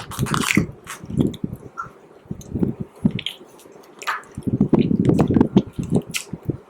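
Close-miked chewing of SweetTarts candy: irregular low, wet mouth clicks and crunches, picked up with the microphone's bass and treble turned up. A quieter lull comes about two seconds in before the chewing picks up again.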